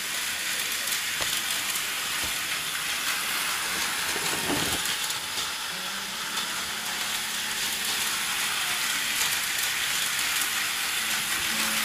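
Tyco US-1 electric slot trucks running on their plastic track: a steady whirring hiss of the small motors, with one knock about four and a half seconds in.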